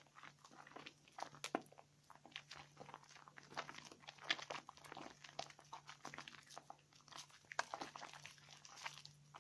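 A bar of wet 72% bleaching laundry soap being lathered in the hands, making soft, irregular sticky crackles and clicks.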